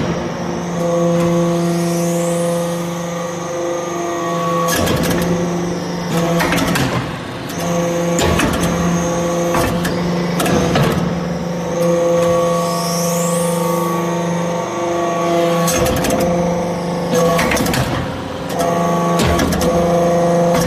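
XB630 hydraulic metal-chip briquetting press running: a steady pitched hum from its hydraulic power unit, with clanks and knocks that repeat in a cycle of about eleven seconds as it presses. A short rising whistle comes twice, once in each cycle.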